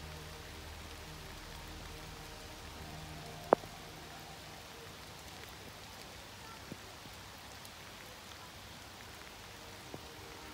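Light rain falling on a river and its pebble shore, a steady soft hiss. A single sharp tick about three and a half seconds in is the loudest sound, with two fainter ticks later.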